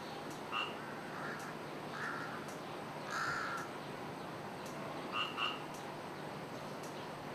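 A series of short harsh animal calls. The longest and loudest comes about three seconds in, and a quick double call follows near the end.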